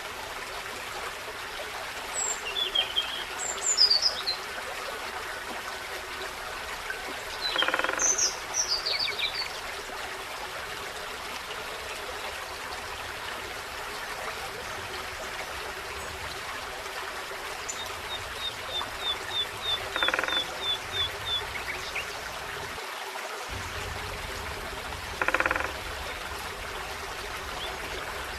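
Forest brook flowing steadily, with small birds singing and calling now and then: quick falling trills and a run of rapid repeated notes. Three short, harsher calls stand out, spread through.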